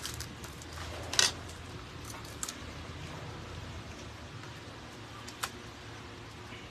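A few sharp clicks and knocks of a metal spoon against ceramic bowls and plates during a meal, the loudest about a second in, over a low steady hum.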